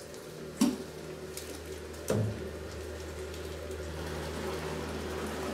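Stainless-steel pail scooping thick sake mash (moromi) from a steel tank: two clanks about a second and a half apart with wet scooping sounds, over a steady low hum.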